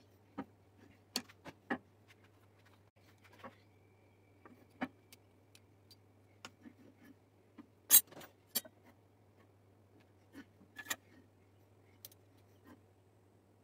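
Scattered light clicks and knocks of a steel rule, combination square and wooden handle blank being handled and set down on a bandsaw table, the sharpest knock about eight seconds in. A low steady hum runs underneath.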